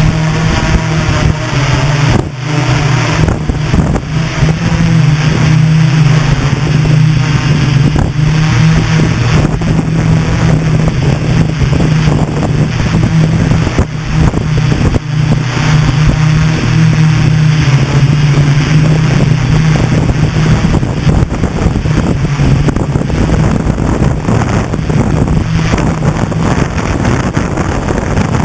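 Hexacopter's brushless motors and propellers humming steadily as the aircraft lifts off and climbs, heard from the camera mounted on it.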